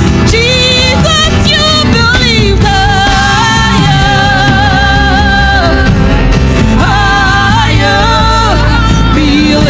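Gospel praise-and-worship music: a singer's voice with quick runs and long held notes over a full band with a steady bass.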